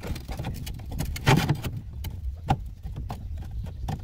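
Scattered metal clicks and knocks from hands working at the bell housing of a VW Kombi's transaxle, with a louder clatter about a second and a half in and a sharp click a second later, over a low steady rumble.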